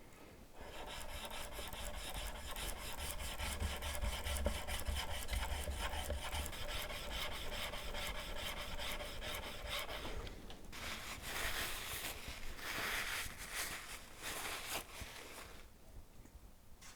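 Steel chisel back rubbed back and forth flat on the 1000-grit face of a diamond sharpening stone wetted with lapping fluid, a steady gritty scraping of quick strokes, stopping about a second before the end. The back is being lapped flat to work out a hollow.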